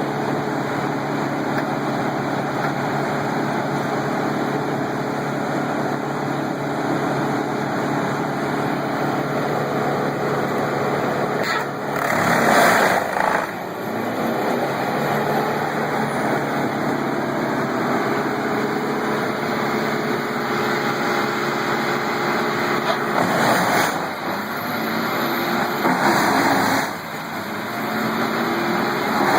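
Heavy wood-processing machine's engine running steadily, with louder bursts of grinding noise a few times: about 12 seconds in, around 24 and 26 seconds, and near the end.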